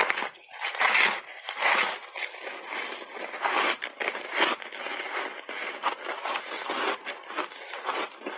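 Ice crunching and crackling as a matcha-powder-coated block of ice is bitten and chewed: several loud bites in the first half, then steady crackly chewing.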